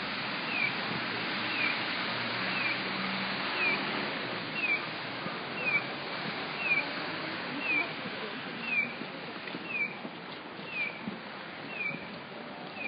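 Electronic chirp of a pedestrian crossing signal: a short, high, falling cheep repeated evenly about once a second, over steady street noise.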